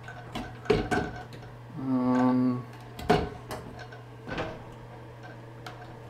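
Scattered clicks and clinks of plastic shower fittings and a metal shower hose being handled and fitted onto the shower arm, over a steady low hum. About two seconds in there is a short hummed 'hmm'.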